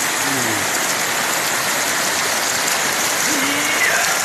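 A stream rushing over rocks, making a steady, even sound of running water.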